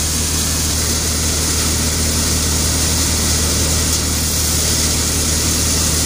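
Paddy threshing machine running steadily as rice is threshed: a constant low drone with a steady hiss over it.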